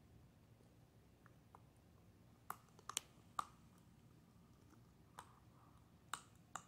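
Puppy gnawing a ridged plastic chew bone: a handful of faint, sharp clicks of teeth on the toy, scattered irregularly, most of them in the second half.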